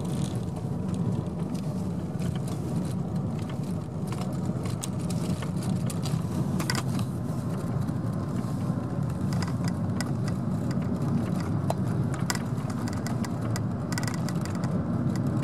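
Car driving, heard from inside the cabin: steady engine and tyre rumble on tarmac, with scattered light clicks and rattles.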